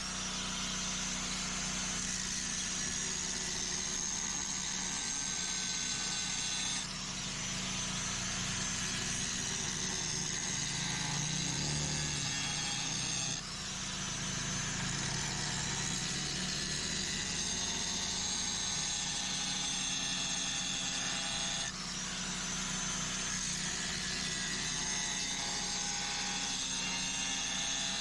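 Angle grinder cutting steel, running steadily with a high whine; three times the whine dips briefly and climbs back up as the disc is eased off and pressed in again.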